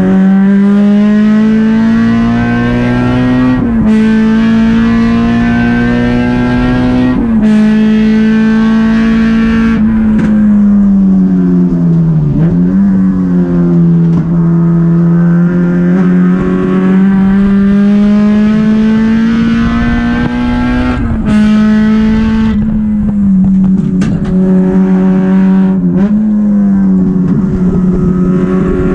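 Honda Civic race car's four-cylinder engine heard from inside the stripped cabin, revving hard and climbing in pitch through the gears, with upshifts dropping the pitch about four and seven seconds in. It falls away under braking with quick downshift blips around ten to twelve seconds in, then pulls up through the revs again with more shifts near the end.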